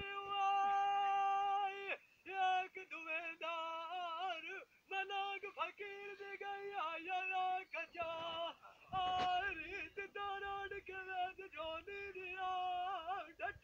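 A man singing Punjabi dholay in long, high held notes with wavering ornaments, broken by short breaths and pauses, with no instruments heard. There is a brief noisy burst about nine seconds in.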